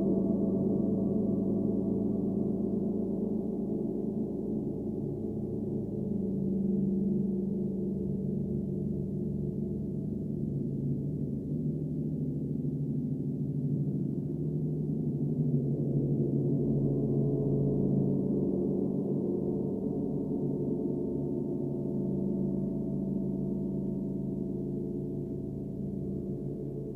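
Frosted crystal singing bowls ringing together in several overlapping sustained tones that swell and fade slowly, with no distinct strikes.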